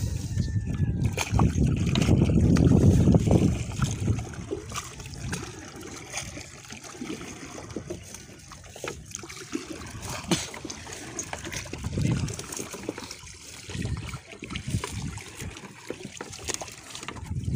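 Water trickling and splashing off a wet fishing net as it is hauled into a small wooden outrigger boat, with scattered knocks of floats and gear against the hull. A loud low rumble fills the first few seconds, and near the end a pole or paddle splashes in the water beside the boat.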